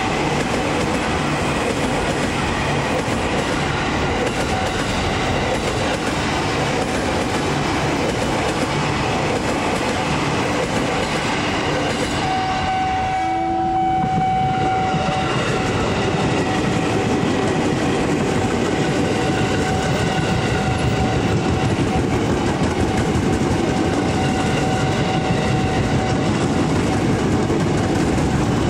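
KRL Commuter Line electric commuter trains passing on the line: a continuous loud rumble and rail noise of the wheels on the track. About halfway in a long steady warning tone starts and runs on more faintly to the end.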